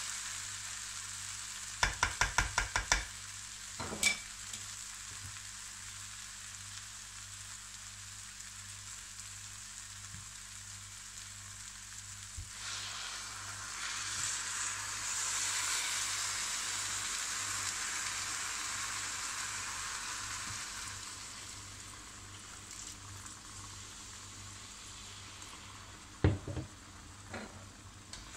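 Bulgur and chopped vegetables sizzling as they fry in a pan. About two seconds in a slotted spatula is tapped quickly against the pan several times, and a single knock follows. From about twelve seconds water poured from a jug into the hot pan brings a louder, fuller hiss that settles over several seconds. Near the end the spatula knocks against the pan as the now liquid mixture is stirred.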